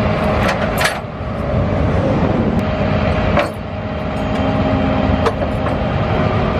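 Flatbed tow truck running steadily while a car is loaded onto its tilted bed, with a few sharp metallic clicks and clanks.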